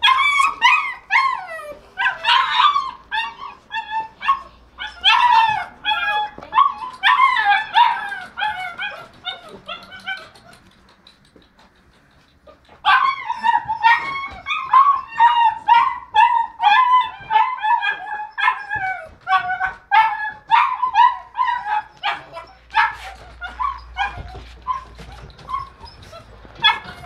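Neapolitan Mastiff puppies, about six weeks old, giving rapid, high-pitched yips and barks one after another, with a lull of about two seconds a little before the middle.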